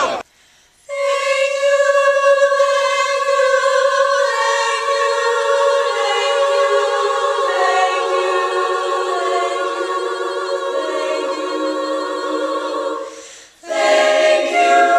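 A choir singing a cappella in long held chords that step slowly downward. Near the end the singing breaks off briefly and a new chord begins.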